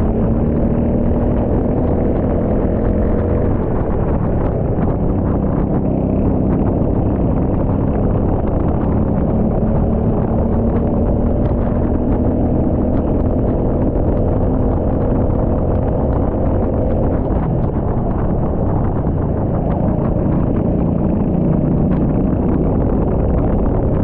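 Rental go-kart engine running at speed, its pitch drifting slowly up and down as the throttle changes, under a heavy low rumble.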